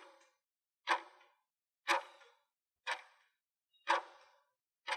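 Countdown timer ticking sound effect: one sharp tick each second, each with a short ringing tail, about six in all.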